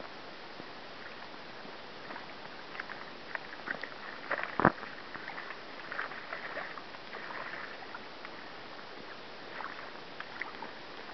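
A hooked sockeye salmon thrashing and splashing in shallow water as it is drawn onto a gravel bar, with wading splashes, irregular splashes clustered through the middle and one sharp knock about four and a half seconds in, over a steady hiss of river noise.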